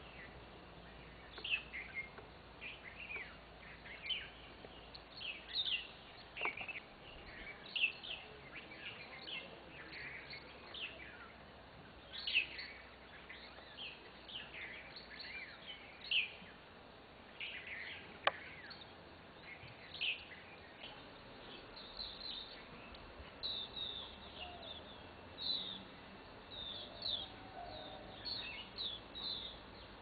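Small songbirds chirping: many short, high calls in quick succession, one or two a second, from several birds at once.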